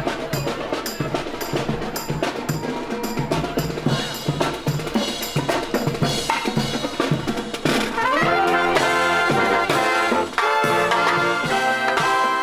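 Brass and drum music: a steady drum beat with horns, then about eight seconds in the brass swells up into loud held chords.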